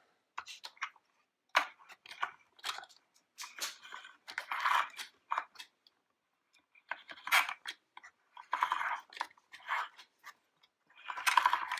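Play-Doh being squished and worked in a plastic toy molding press: irregular soft crackles and squelches with light plastic clicks, pausing for about a second around six seconds in.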